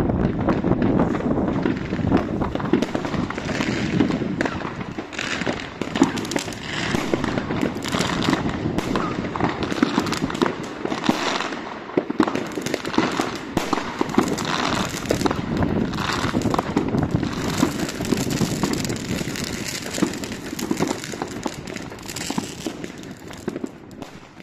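Fireworks: a dense, continuous barrage of rockets bursting and firecrackers banging and crackling, fading out near the end.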